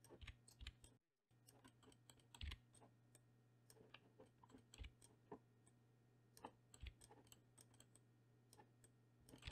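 Near silence with faint, scattered clicks of a computer keyboard and mouse being operated.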